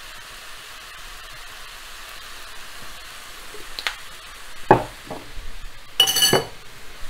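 Diced vegetables frying in a non-stick pan with a steady low sizzle. A few sharp knocks come about four to five seconds in, then a short ringing metal clink about six seconds in, the loudest sound.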